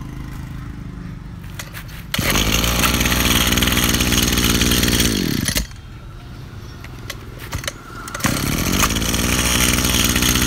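Small petrol engine of a used Japanese Robin brush cutter on a test run. It idles steadily, is revved hard to full throttle about two seconds in, drops back to idle after about three seconds, and is revved hard again near the end.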